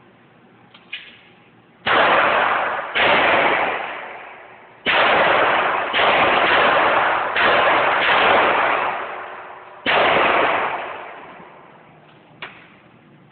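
Seven gunshots fired one at a time at an uneven pace, each sharp crack followed by a long echoing tail.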